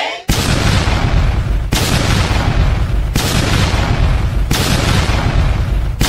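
A loud, rough rushing noise with a deep rumble, laid over the picture as a sound effect. It restarts sharply about every second and a half.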